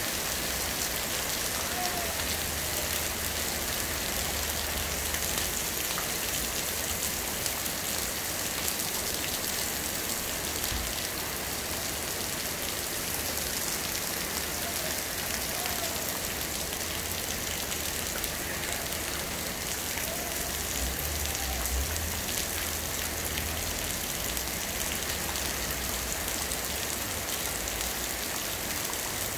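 Heavy rain falling steadily on wet pavement and a flooded street, a continuous even hiss of drops.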